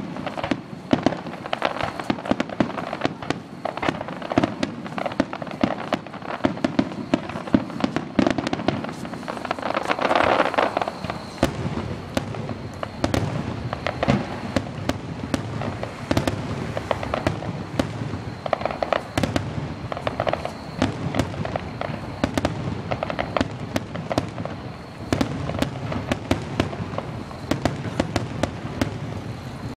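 Aerial fireworks bursting in a dense, continuous barrage of bangs and crackles, with a louder swell of crackling about ten seconds in.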